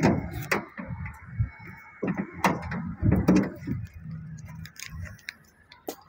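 Footsteps on asphalt with irregular clicks and knocks, then a sharp click near the end as the van's rear door is reached and opened.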